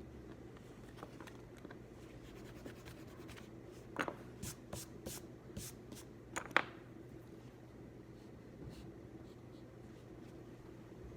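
Writing on paper: a run of short scratching strokes and light taps about four to seven seconds in, the sharpest at the start and end of the run, over a steady low room hum.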